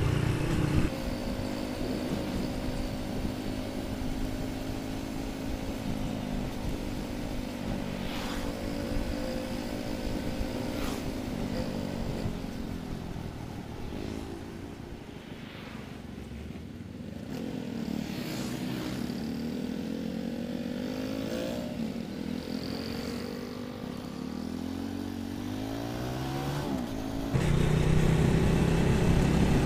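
Motorcycle engine heard from the rider's seat while riding. It runs steadily, drops in pitch and quietens about halfway through, then rises in pitch twice as it accelerates, and gets louder near the end.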